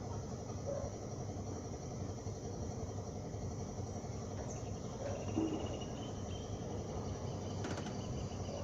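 Steady outdoor evening ambience: insects chirring over a low hum like distant traffic. A faint thin tone sounds briefly in the middle and a short click comes near the end.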